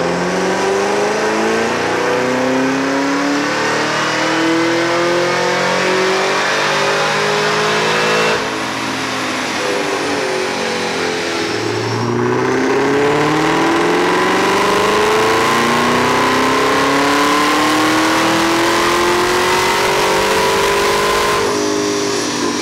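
Supercharged V8 of a 10-speed automatic Camaro ZL1 making a full-throttle dyno pull. The revs climb steadily with a high whine rising along with them. The climb breaks twice, about 8 and 12 seconds in, and the engine comes off the throttle shortly before the end.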